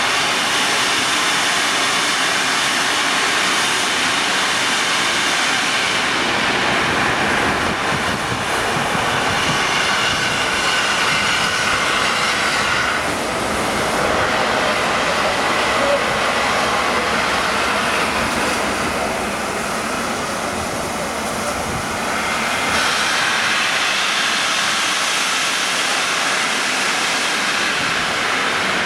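A passenger train running past, a loud, steady rushing rumble that eases slightly for a few seconds past the middle.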